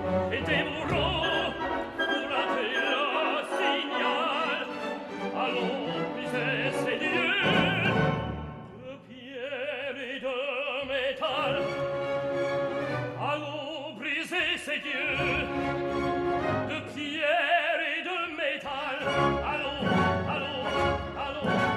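Operatic tenor singing an aria in French with full orchestral accompaniment, with a wide vibrato; the music thins briefly about eight seconds in, then the voice and orchestra resume.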